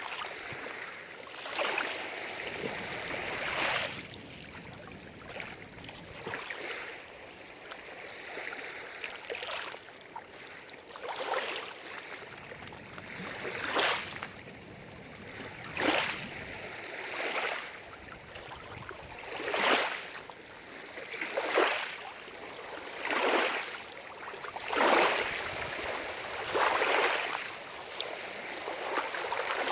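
Small waves lapping and splashing against the lake shore, in short surges every second or two over a steady wash of water.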